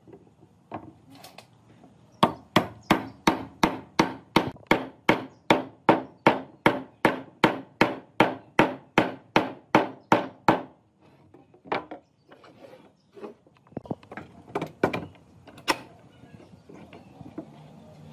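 Hammer blows on wood: a quick, even run of about two dozen strikes at roughly three a second, then a few scattered blows.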